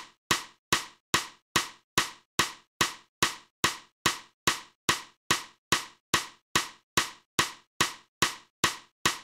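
Sharp wooden clacks repeating evenly, about two and a half a second, each dying away quickly: a sound effect marking each wooden test block as it lands on a growing stack.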